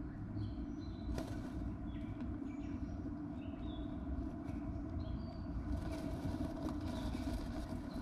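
Eastern bluebird shifting and turning in its pine-needle nest inside a nest box, with scratchy rustles of the nest material, heaviest in the second half. A steady low rumble runs underneath, with faint short chirps of other birds.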